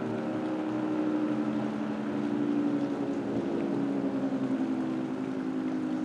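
Federal Signal 3T22 outdoor warning siren sounding a steady blast for its noon test: a sustained multi-tone chord whose loudness wavers slightly. It sounds at full volume now that the jammed bottom damper plate has been removed.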